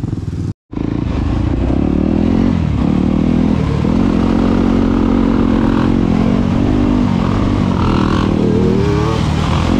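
Yamaha dirt bike engine heard from onboard, revving up and dropping back over and over as it rides along a dirt trail, with a steep rise in pitch near the end. The sound cuts out briefly about half a second in.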